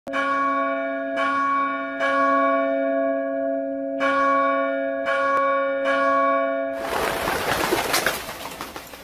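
Large bell struck six times at an uneven pace, each strike ringing on over a steady low hum. About seven seconds in the ringing gives way to a loud rushing hiss that fades away.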